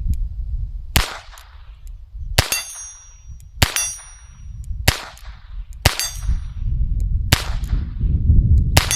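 .22 LR revolver (Alfa Proj 2261) fired seven times at about one shot every second and a bit, several shots followed by the high ring of a steel plate being hit at 25 metres.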